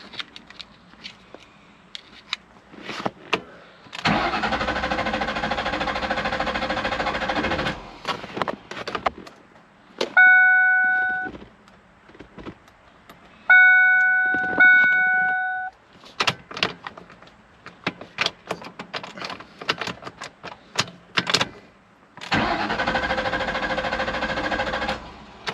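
1998 Ford Mustang's starter cranking the engine for about four seconds without it catching, and again for about three seconds near the end, also without a start: a crank-no-start caused by the Ford anti-theft system, which flashes its theft light and reports no keys registered. Between the two cranks come three short electronic chime tones and some small clicks.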